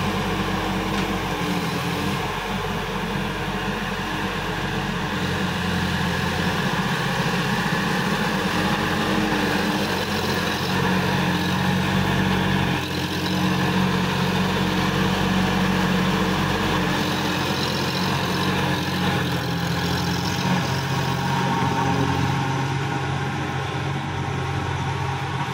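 Sonalika tractor's diesel engine running steadily while it pulls a rotary tiller through soil.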